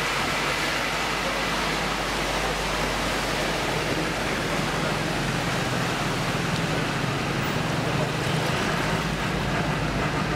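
Truck engine running steadily as the truck drives through deep floodwater, over a constant rush of churned, running water.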